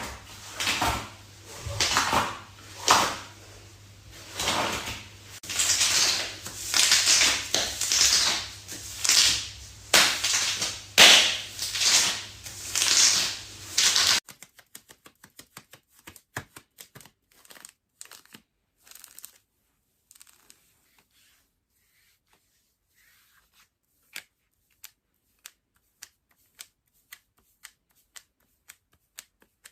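Leather being rubbed and worked in quick strokes, roughly one or two a second, over a low hum. About halfway through it cuts off abruptly to quiet, with scattered sharp clicks, then single clicks evenly spaced a little under a second apart.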